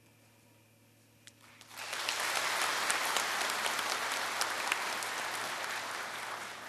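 A large audience applauding in a hall. The applause starts about two seconds in after a near-silent moment and fades out near the end.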